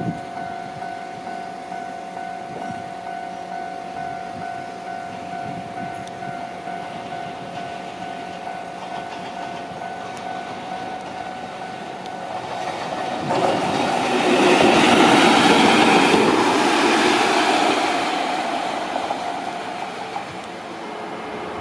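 A train passing close by on the rails. A steady high tone and moderate rumble come first. The wheel-and-rail noise then builds from about twelve seconds in, is loudest around fifteen to sixteen seconds, and fades away.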